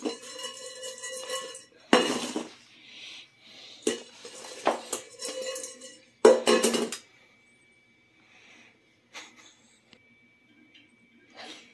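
Stainless steel bowl holding metal twist ties being handled and set down on a wooden floor: a series of clanks over the first seven seconds, the bowl ringing on after each, then a few faint taps near the end.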